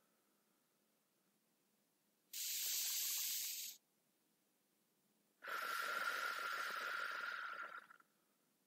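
A woman's slow, deep breathing: one inhale of about a second and a half starting about two seconds in, then a longer exhale of about two and a half seconds.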